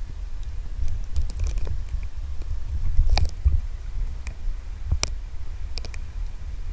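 Underwater sound picked up by a camera in its waterproof housing: a steady low rumble of water moving around the housing, with scattered sharp clicks and taps, the loudest about three seconds in and another about five seconds in.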